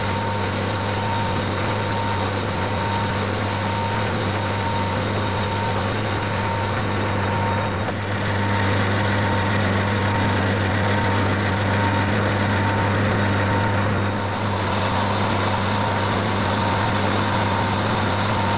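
Metal lathe running, its tool cutting a small cast iron casting held in the three-jaw chuck: a steady motor and gear hum with a constant hiss of cutting. A faint high whine drops out about 8 seconds in.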